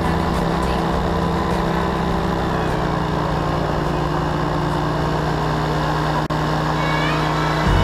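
Paramotor engine and propeller running steadily in flight, an even drone. It cuts out for an instant about six seconds in.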